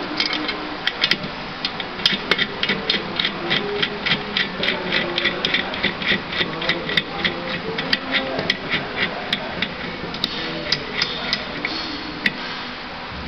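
Metal parts of a TDP 0 manual tablet press clicking as they are turned by hand, about three to four sharp clicks a second, thinning out to a few scattered clicks near the end.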